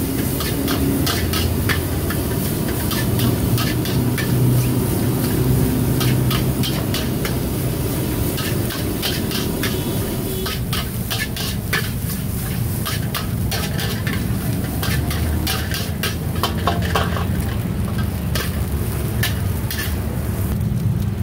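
Fried rice being stir-fried in a wok: the food sizzles while a metal spatula scrapes and clacks rapidly against the pan, over a steady low rumble.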